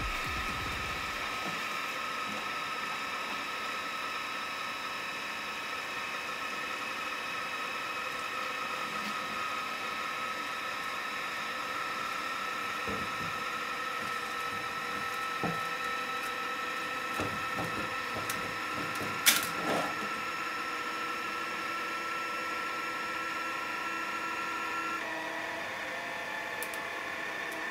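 Anycubic Kossel delta 3D printer preheating, with a steady fan whine, then a single sharp click about two-thirds of the way in. Near the end the stepper motors start as the print head moves down to the bed to begin printing.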